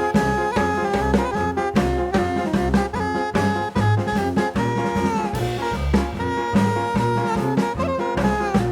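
Background music: upbeat jazz with brass or saxophone over a swinging drum-kit beat.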